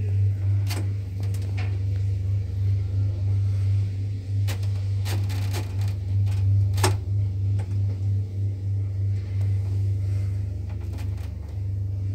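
Traction elevator car travelling, heard from inside the cab: a steady low hum, with scattered clicks and knocks, the sharpest about seven seconds in.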